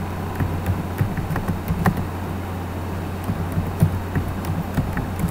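Computer keyboard keystrokes typing a line of code: irregular sharp clicks over a steady low electrical hum.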